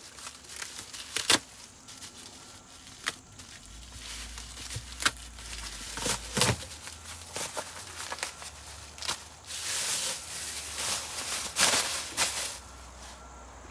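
Duct tape being torn and peeled and a plastic bag crinkling as it is pulled off the top of an engine's corrugated pipe, in scattered crackles and rustles, thickest about ten to twelve seconds in.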